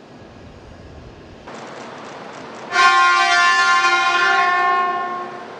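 Kyushu Shinkansen 800-series train sounding its horn at departure: one long steady blast of about two and a half seconds, starting about three seconds in over a background of platform noise, fading away near the end.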